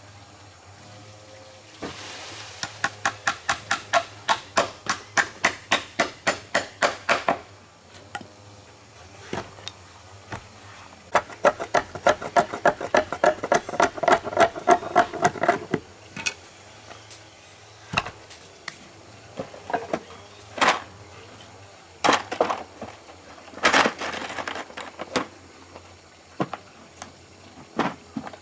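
Machete blade chopping at the edge of a wooden board: two long runs of quick strokes, about five a second, then scattered single knocks.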